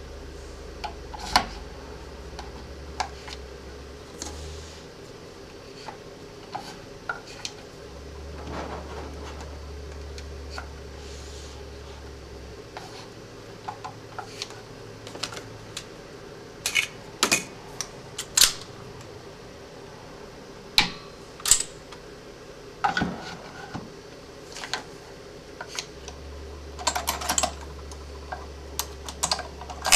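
Hands fitting a pistol and its mount onto a rotating pistol stand: scattered sharp clicks and light knocks of metal and plastic parts, several in quick succession near the middle and near the end.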